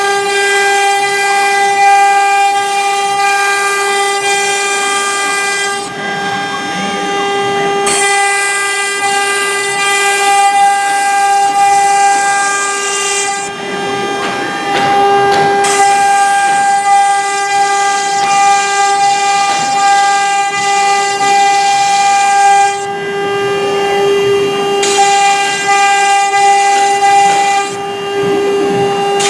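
CNC router spindle whining at a steady high pitch while its bit cuts MDF, with a loud hiss of cutting that drops away several times for a second or two as the tool moves between cuts and then returns.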